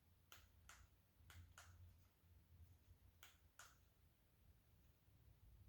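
Near silence broken by six faint sharp clicks, in three pairs about a third of a second apart.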